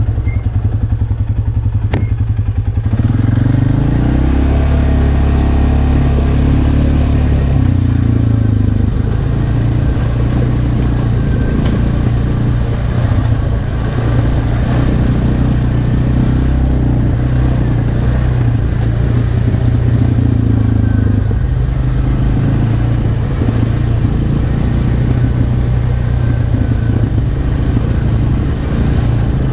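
Arctic Cat Alterra 450 ATV's single-cylinder engine running as the quad rides a rough dirt trail. It runs low and pulsing at first, revs up about three seconds in, then runs steadily.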